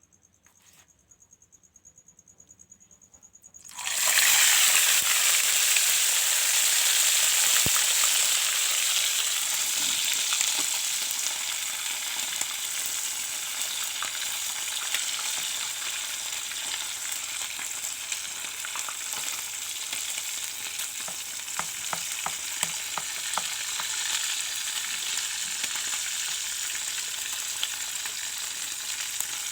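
A faint steady insect trill, then about four seconds in a whole tilapia goes into hot oil: a sudden loud sizzle that gradually settles into steady frying with scattered crackles.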